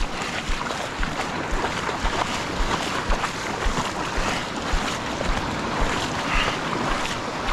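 Small surf washing in the shallows at the water's edge, with wind buffeting the microphone in repeated low thumps.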